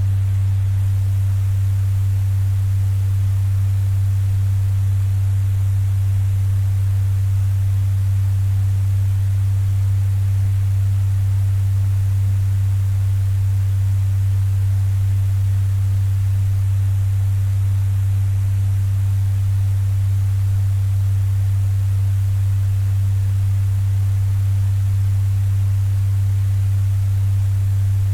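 Electric fan running steadily at a strong setting: a loud, unchanging low hum with a fainter hiss of moving air above it.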